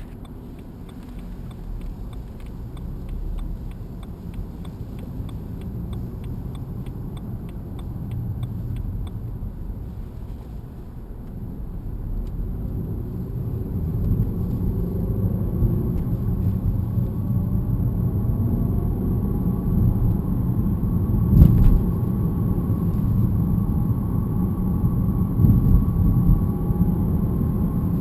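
BMW E90 318 on the move, heard from inside the car: road and tyre rumble grows as it picks up speed. From about halfway a steady metallic whine comes in, which the seller puts down to the differential. A single knock about three-quarters of the way through is the loudest moment.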